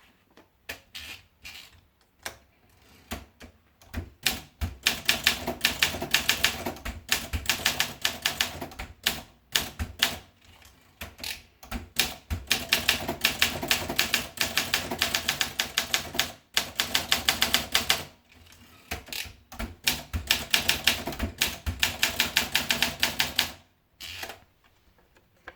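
Olympia SM4 manual portable typewriter being typed on: quick runs of key strikes broken by short pauses.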